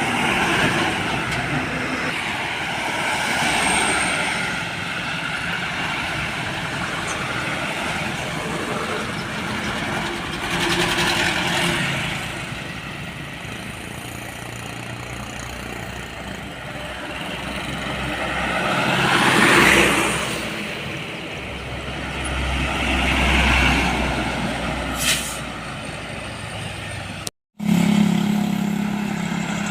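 Heavy trucks passing on a road one after another, their engine and tyre noise swelling and fading; the loudest pass comes about two-thirds through and leaves a deep rumble behind it. There is a short air-brake hiss a little later. After an abrupt cut near the end, a truck engine runs close by with a steady hum.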